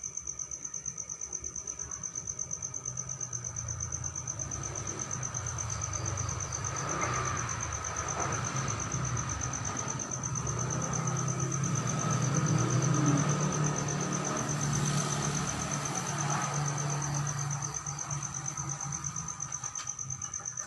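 A cricket trilling on a steady, high, rapidly pulsing note throughout. Under it a low rumble builds from a few seconds in, is loudest about two-thirds of the way through, and fades again near the end.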